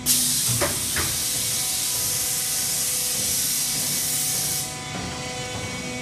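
Form-fill-seal shavings baler giving off a loud, steady hiss that starts suddenly and cuts off suddenly after about four and a half seconds, with two clicks about half a second and a second in, over the machine's faint steady hum.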